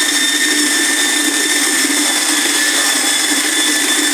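Corded electric drill running steadily with a paddle mixer, churning wet mortar in a bucket, with a steady whine from the motor.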